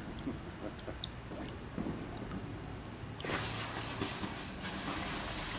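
Crickets chirping in a steady, pulsing high trill; about three seconds in, a lit ground firework starts up with a loud spraying hiss over them.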